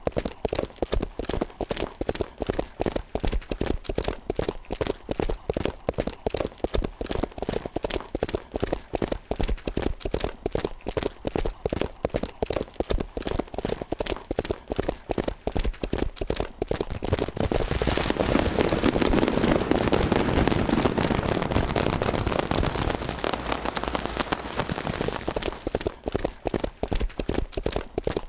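A rapid, even train of clicks, several a second. About two-thirds of the way in, a loud rushing hiss swells up for several seconds and then fades, while the clicks keep going.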